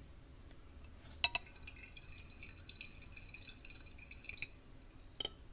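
A glass clink about a second in, then clarified cocktail trickling and dripping into a paper filter cone over a glass carafe for about three seconds, with a thin glassy ring. It ends in a few light clinks. This is the first-pass filtrate being poured back through the milk bed in the filter for milk clarification.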